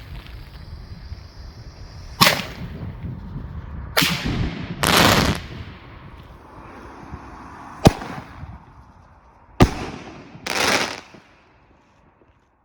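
Funke Bujny 2 50 mm single-shot airbombs firing: four sharp bangs, two of them followed about a second later by a longer rushing burst. It falls silent about a second before the end.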